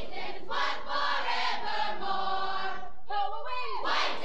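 A group of voices singing a camp team song together, holding one long note for a couple of seconds, then moving into short, clipped syllables near the end, played from a 1979 vinyl record.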